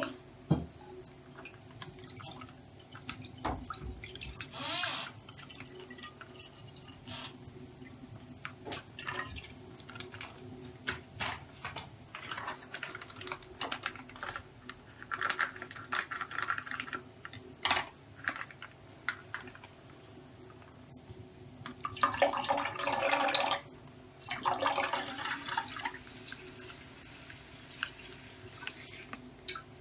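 Milk pouring from a plastic packet into a nonstick pan, in several bursts of a second or two, with dripping and scattered small clicks from the packet and pan being handled.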